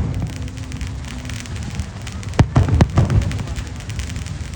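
Fireworks going off: a steady crackling and low rumble, with a quick cluster of four or five sharp bangs about two and a half seconds in.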